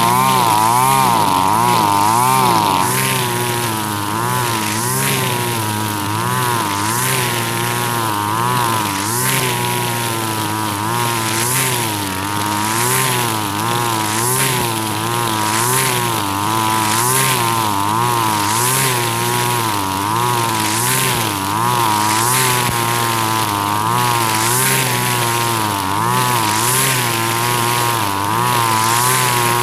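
Husqvarna 542RBS 42 cc two-stroke backpack brush cutter running at high revs, spinning 2.4 mm square trimmer line through thick, tall grass. The engine pitch dips and recovers about once a second as the line bites into the grass with each sweep, over a repeated swishing of cut grass.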